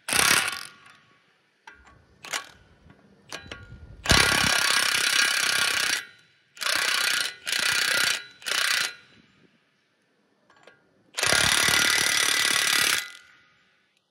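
Cordless impact wrench hammering in repeated bursts on the front hub's axle nut, turning the hub and rotor: a short burst, two brief blips, a long burst of about two seconds, three short bursts, then another burst of about two seconds near the end.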